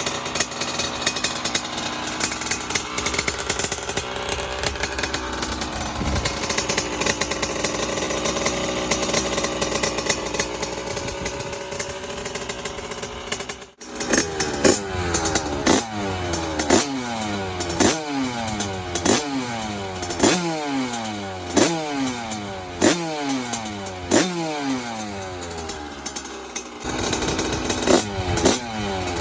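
Yamaha DT two-stroke motorcycle engine running steadily for the first half. After a sudden break it is blipped over and over, about one sharp rev every second and a bit, each one falling straight back.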